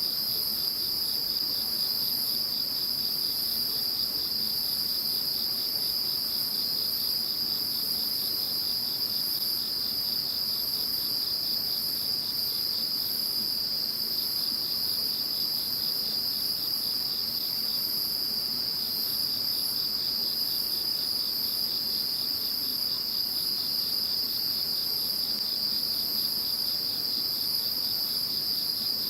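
A chorus of several kinds of singing insects calling together, with no break. One steady high trill runs throughout, with a fast pulsing chirp just below it that thins out for a few seconds mid-way, and a very high shimmering buzz above both.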